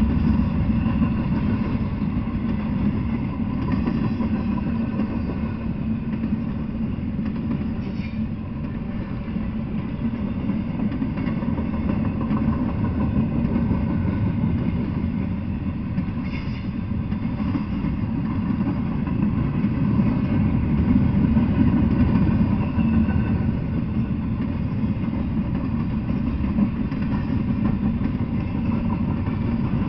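Freight train of double-stack container well cars rolling past, a steady low rumble of steel wheels on the rails.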